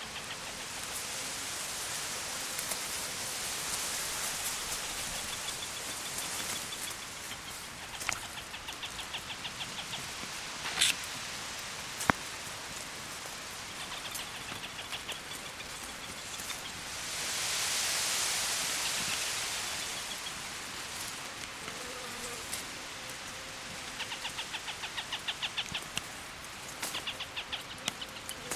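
Adult Montagu's harriers calling in alarm: three bouts of rapid, evenly repeated sharp notes a few seconds apart, a sign of the parents' agitation near the chicks. Underneath is a steady high hiss that swells a little past halfway, with a few sharp clicks.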